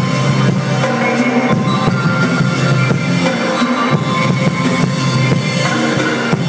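Live band playing loud, dense electronic-tinged music with many sustained tones over a steady drum beat and heavy low end.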